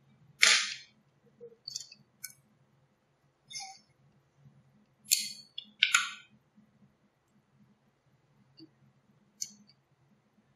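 Alignment tape being handled to fix a strain gauge in place: a string of short crackling rasps, the loudest near the start and two more around the middle, over a faint steady low hum.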